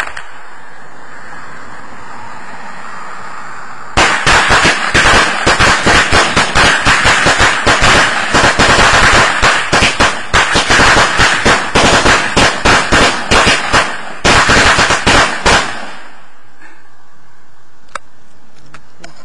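A string of firecrackers hanging on a wooden utility pole goes off in rapid, irregular sharp cracks, starting about four seconds in. It runs for about twelve seconds with a brief gap near the end, then stops.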